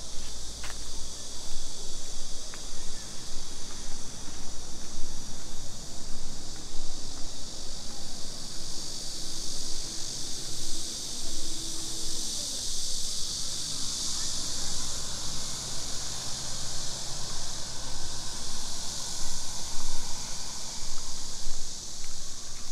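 A steady chorus of insects buzzing in a high band, swelling louder in the middle, over a low rumble.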